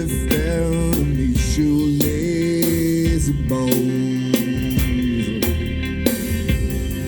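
A band playing an instrumental stretch of a rock song: bass, drums with regular sharp hits, guitar, and a sustained melodic line that steps and slides in pitch.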